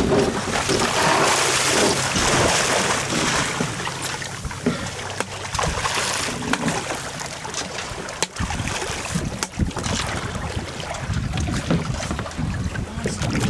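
Wind buffeting the microphone over water sloshing around a small fishing boat, with scattered sharp knocks on the boat.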